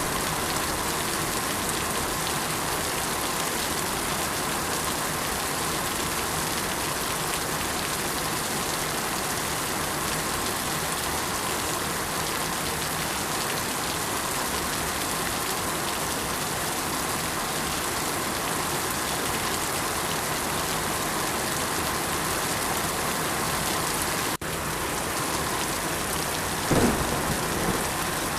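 Steady rain falling, an even hiss of drops. There is a split-second drop-out about 24 seconds in, and a short, louder thump near the end.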